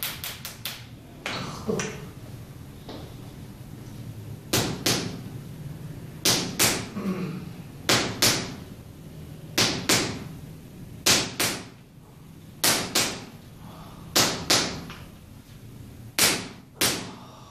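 A handheld stick striking the bare sole and heel of a foot in percussion massage for heel spurs. Sharp smacks, mostly in pairs about every second and a half, after a quick run of light taps at the start.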